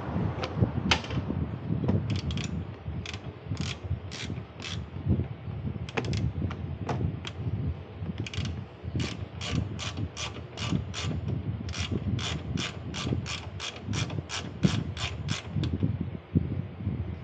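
Hand ratchet wrench clicking as it is worked: scattered, uneven clicks at first, then a steady run of about three clicks a second for several seconds before it stops near the end. A low rumble runs underneath.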